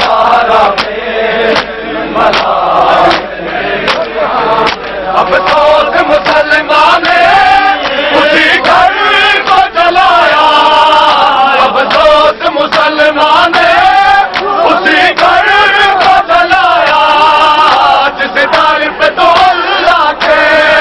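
A crowd of men chanting a mourning chant together, with repeated sharp slaps of hands on bare chests (matam).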